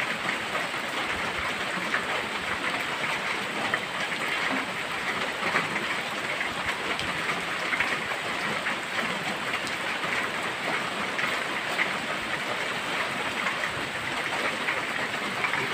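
Steady rain falling on trees and the ground, a dense, even hiss of many small drops.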